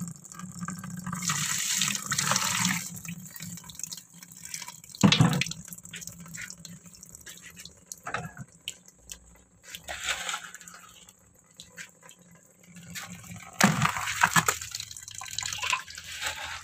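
Water being scooped and poured with plastic dippers from a large tub, splashing in several separate bursts. The loudest sound is a short, sharp hit about five seconds in.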